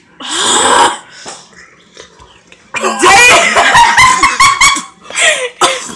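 Wordless vocal sounds from a person eating a spicy chicken wing. There is a loud breathy burst just after the start, then from about three seconds a loud, rapid run of cries and exclamations.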